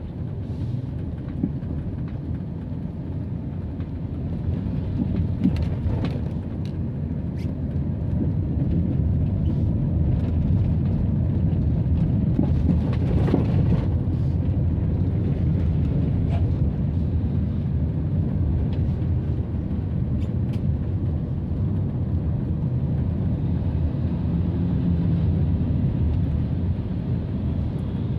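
Steady low rumble of a moving vehicle and its road noise while driving among passing motorbikes and traffic, growing louder about eight seconds in, with a brief swell about thirteen seconds in as an oncoming bus passes.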